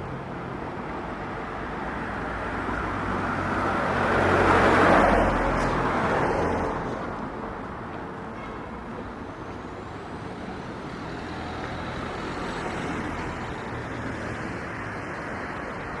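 A car passing by on the street: its engine and tyre noise swell to a peak about five seconds in and then fade away, over a steady hum of distant traffic.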